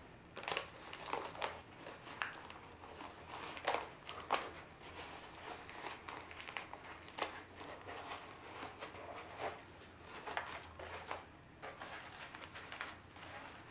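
Crumpled paper crinkling and rustling as it is pressed and packed into a corrugated-cardboard armature, with irregular short crackles throughout.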